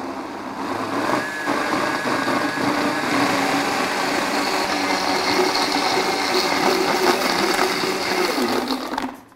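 Countertop blender running steadily, chopping ice cubes, spring onion, herbs and thick yogurt into a smooth green chutney. The motor cuts off sharply just before the end.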